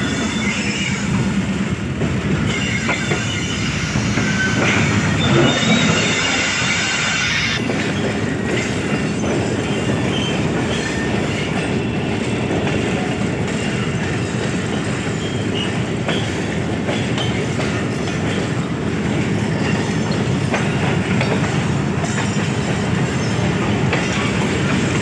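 Passenger train coaches running on the track, heard from on board: a steady rumble with the clickety-clack of wheels over rail joints. A high wheel squeal starts about two seconds in and lasts about five seconds.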